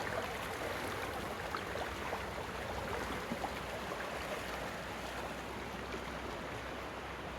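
Creek water flowing steadily, with many small splashes and trickles through it.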